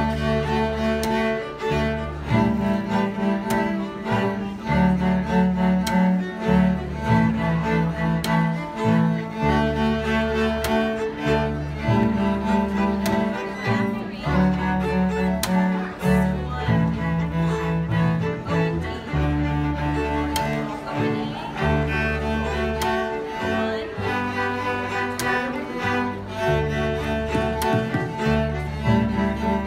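A small string ensemble of cellos and violins playing together, the cellos bowing sustained low notes that change every second or two.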